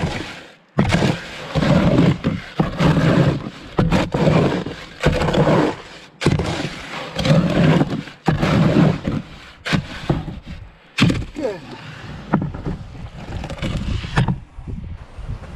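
A shovel turning wet concrete in a wheelbarrow: repeated scraping strokes of the blade through the mix and across the tub, about one a second, growing sparser near the end.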